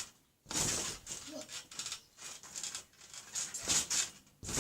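Trampoline bed and springs under a person bouncing, a few irregular noisy bursts with a low thud near the end.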